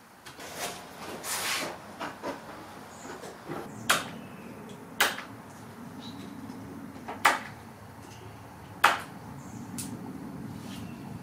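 Steel infill-plane parts, a side plate and small dovetailed pieces, handled and set against one another on a wooden workbench: a short scrape about a second in, then a string of sharp knocks and clicks a second or two apart.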